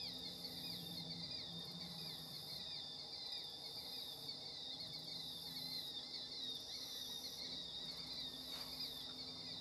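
Insect chorus of crickets chirping steadily: a continuous high trill with quick, evenly repeated chirps over it.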